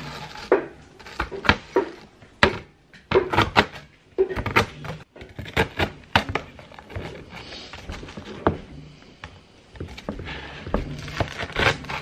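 Kitchen knife chopping Oreo sandwich cookies on a cutting board: irregular sharp chops and knocks, several a second, as the blade cuts through the cookies and strikes the board.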